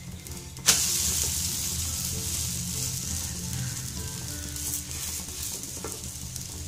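Vermicelli omelette flipped onto a hot oiled tawa: a slap about a second in, then loud steady sizzling of egg frying in oil.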